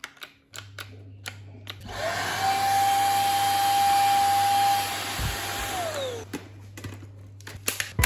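Honiture S13 cordless stick vacuum switched on by its trigger: the motor spins up to a steady high whine with a rush of air for about four seconds, then winds down and stops. Plastic handling clicks come before it starts and after it stops.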